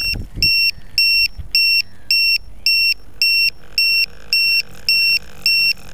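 An electronic beeper on the landed quadcopter sounding a steady train of short, high-pitched beeps, about two a second, as the rotor noise dies away at the start.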